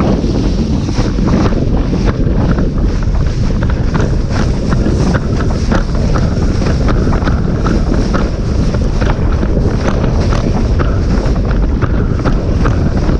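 Heavy wind buffeting on the microphone over the rushing water of a Starboard Isonic 117 windsurf board planing fast, with many short, irregular slaps as the hull hits the chop.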